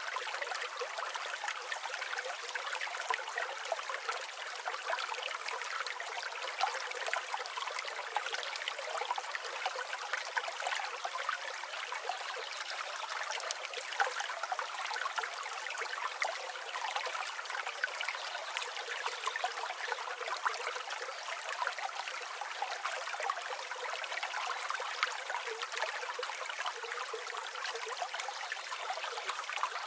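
Forest stream running steadily, a continuous trickling and babbling of water with no low rumble.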